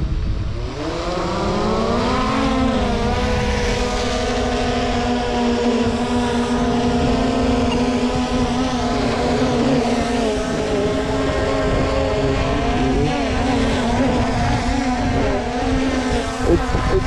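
Small camera drone's propellers spinning up. The whine rises in pitch over the first two seconds, then holds a steady hum as it hovers. Wind rumbles on the microphone underneath.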